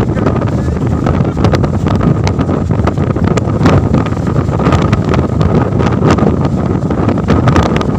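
Strong wind buffeting the microphone: loud, uneven rumbling noise with frequent crackling clicks.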